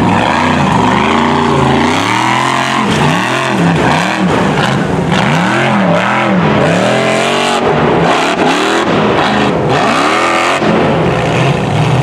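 A formula offroad buggy's engine revving hard as it climbs a steep dirt hill, its pitch surging up and dropping back about once a second as the throttle is worked.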